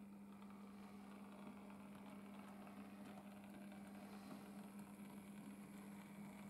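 Faint, steady hum and whirr of a model railway tank locomotive's electric motor and wheels as it runs along the track.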